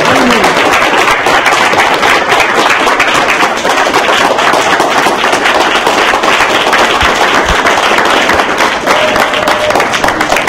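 Audience clapping loudly, a dense patter of many hands close to the microphone, keeping up evenly throughout.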